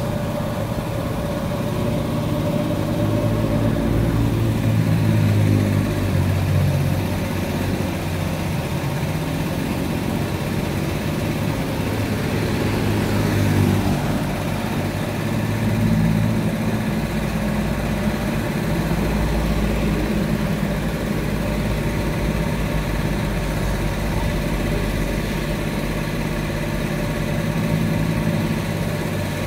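Road traffic, mostly small motorcycles riding past: engine hum that swells and fades several times as bikes come and go, over a steady low drone.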